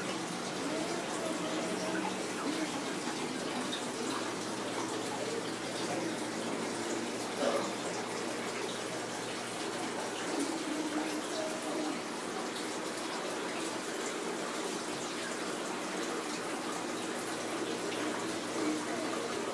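Aquarium water running steadily, the continuous rush of its filtration, with a faint low hum underneath and one brief knock partway through.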